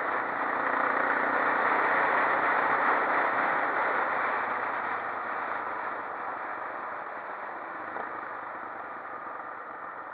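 Quad bike on the move, its engine mixed with heavy wind and road noise. The sound fades steadily over the second half as the quad slows.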